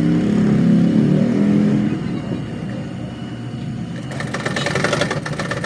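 A motor vehicle engine running: a low hum for the first two seconds, then a rapid rattling buzz starting about four seconds in.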